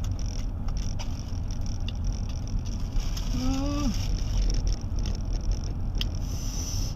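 Steady low rumble of road and engine noise inside a moving car's cabin, with a few small clicks. A short hummed vocal sound rises and falls about three and a half seconds in.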